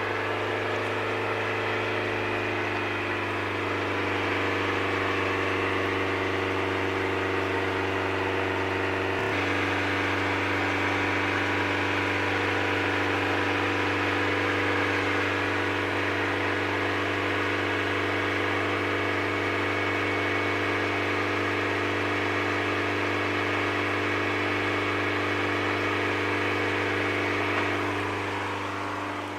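Mazda Miata's four-cylinder engine running at raised revs to burn the Seafoam cleaner through after a soak. The engine speed rises over the first few seconds, holds steady, then eases off near the end.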